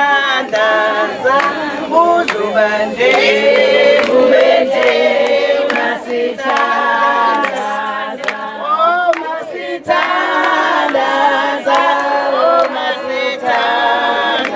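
A group of voices, mostly women's, singing together unaccompanied.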